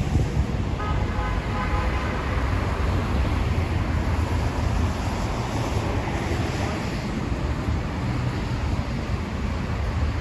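Street traffic with wind rumbling on the microphone; a vehicle swells past about five to seven seconds in.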